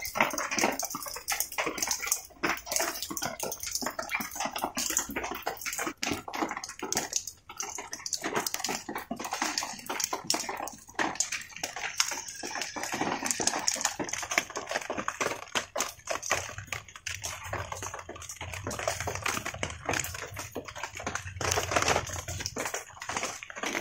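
Rain falling, a dense, irregular patter of drops.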